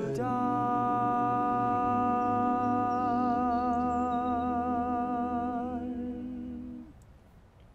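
Male a cappella group holding one long sung chord, the upper voice taking on vibrato about three seconds in. The chord fades away about seven seconds in, leaving only faint background.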